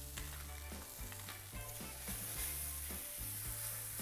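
Sliced shiitake mushrooms sizzling as they fry in a non-stick pan, with a spatula stirring and scraping through them; the sizzle grows brighter about halfway through. Soft background music with a steady bass pulse runs underneath.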